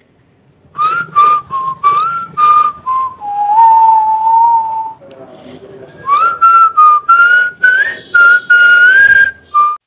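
Whistling a tune: a run of short notes that step up and down in pitch, a longer, lower held note in the middle, then another run of short notes.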